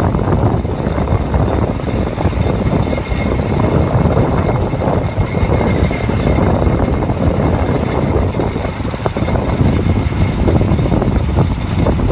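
Car on the move, with loud steady road and running noise and a faint high squeal that comes and goes. It is an unexplained squeaking and rattling that remains after new wheel bearings, calipers, pads, rotors and brake booster, with no dust shield fitted and the pad squealers removed.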